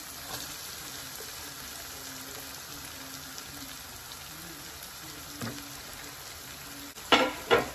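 Onion-and-spice masala frying in oil in a pan, a steady sizzle as washed rice is tipped in on top. Near the end come two sharp knocks close together.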